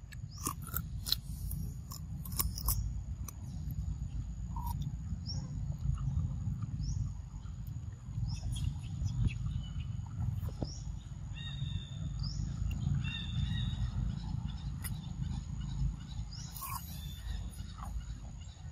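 Macaque biting and chewing a piece of green fruit, with sharp crunches in the first few seconds. A steady low rumble runs underneath, and a few brief chirps come in the middle.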